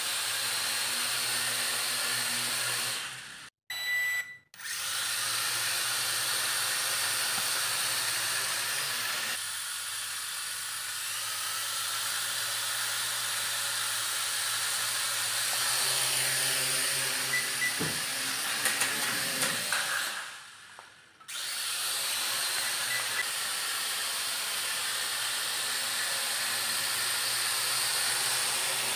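Toy quadcopter's four small electric motors and propellers whirring, a steady high whine with hiss. The motors cut out briefly about three and a half seconds in, and again around twenty seconds in after a short wind-down, then start again. A few light ticks come near the middle.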